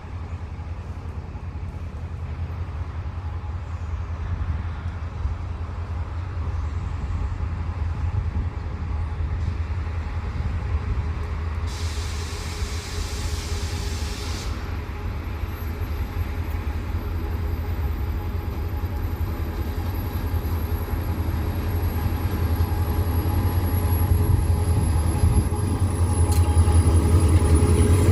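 Three Class 35 GM-EMD diesel locomotives hauling a car-carrier train, their engines giving a steady low rumble that grows gradually louder. A brief hiss comes about twelve seconds in, and a faint high whine slowly falls in pitch over the second half.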